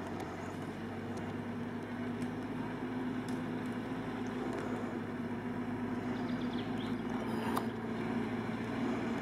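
GAZ-69's four-cylinder engine running steadily at low revs while the jeep crawls through deep mud ruts, slowly getting louder as it comes closer.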